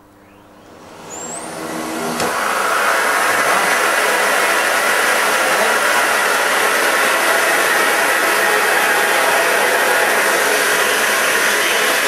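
Canister vacuum cleaner switched on: its motor spins up over about two seconds, then runs steadily with a loud rush of air, drawing suction through a length of plastic drainpipe.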